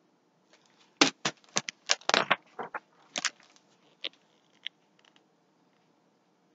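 Paper pages of a hardcover book being turned and handled: a quick run of crisp rustles and taps, loudest in the first few seconds and thinning out near the end.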